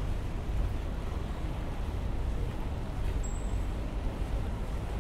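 Steady low rumble of street ambience, with wind buffeting the microphone as it moves along the road. A short, faint high beep sounds about three seconds in.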